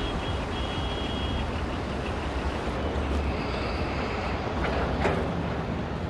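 Steady car engine and street traffic rumble, with a brief sharp noise about five seconds in.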